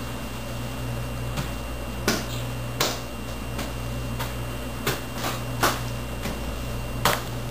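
Several short, sharp taps at irregular spacing, about seven in all, over a steady low hum.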